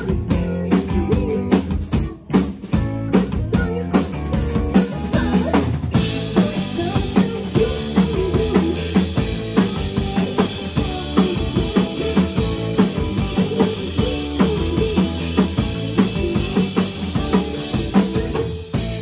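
Live rock band playing: electric guitar, bass guitar, keyboard and drum kit with a steady beat. About six seconds in the sound grows fuller and brighter.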